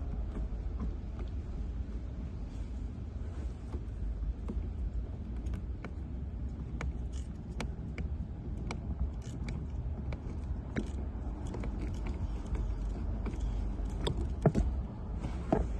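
Scattered light clicks and knocks of a replacement cabin blower motor and its plastic housing being handled and worked into position under a Honda Fit's dashboard, over a low steady rumble, with a louder knock near the end.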